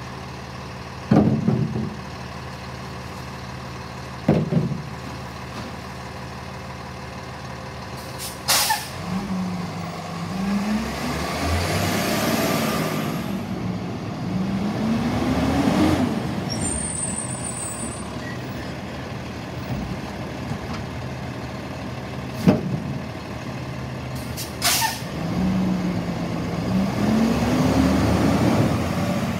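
Freightliner side-loading recycling truck's diesel engine idling. Two bangs early on as recycling bins are dumped into the hopper, then the engine revs up and down twice as the packer runs. Two sharp air-brake hisses, and another bang in between.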